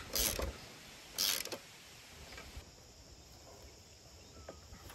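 Ratchet wrench clicking in two short strokes about a second apart, tightening the bolt that holds a new lawn mower blade.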